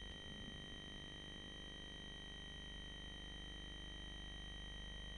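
Steady electrical hum and high whining tones from an analog nest-box camera's audio line, with a brief low crackle of disturbance in the first second or so.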